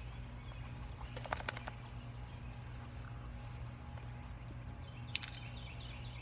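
Outdoor backyard ambience: a steady low hum under it, birds chirping in short high notes, and a few light clicks or taps, a small cluster early and one sharper tap about five seconds in.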